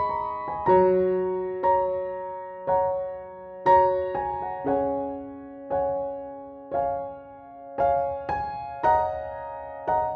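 Slow, gentle piano music: single notes and chords struck about once a second, each left to ring and fade over held chords.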